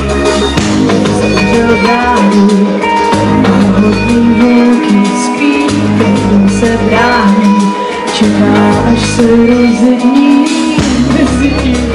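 Pop-rock band music playing an instrumental lead-in before the vocals: held guitar and keyboard tones over a bass line that changes notes and drops out now and then.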